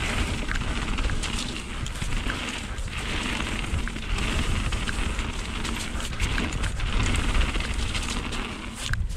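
Mountain bike riding fast down a rough trail, heard from a camera on the rider: wind buffeting the microphone as a steady low rumble, tyres hissing over stones and grit, and the bike rattling with frequent clicks and knocks.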